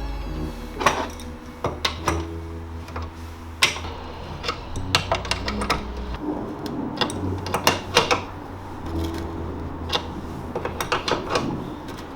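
Spanners working on metal nuts and bolts: an irregular scatter of sharp metallic clicks and taps, a few of them ringing briefly.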